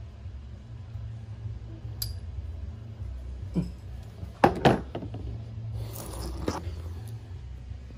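Workshop handling noise: small metallic clicks and clinks of screws and parts, then two sharp knocks close to the microphone about halfway and a brief rustle as an arm brushes past it, over a low steady hum.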